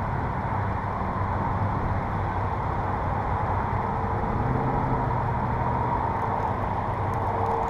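A steady low motor hum with an even drone and no change in speed.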